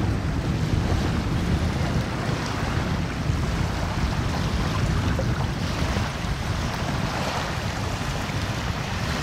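Wind buffeting the microphone: a steady, low rushing rumble that wavers throughout.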